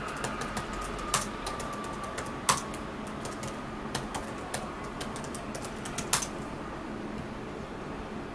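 Typing on a MacBook Pro laptop keyboard: a quick run of light key clicks with a few louder strokes, thinning out over the last couple of seconds.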